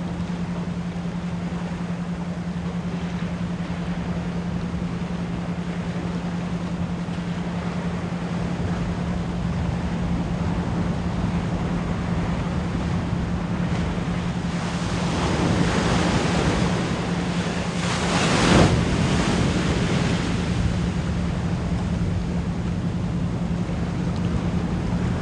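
Ocean waves washing ashore in a steady rush, with a louder surge about two-thirds of the way through. Under them runs a constant low pure tone at 174 Hz, pulsed as an isochronic tone.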